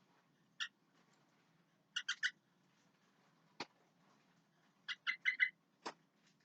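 Sooty-headed bulbul (kutilang) calling in short, bubbly notes: a single note, a quick run of three, then a run of four. Two sharp clicks fall between the calls.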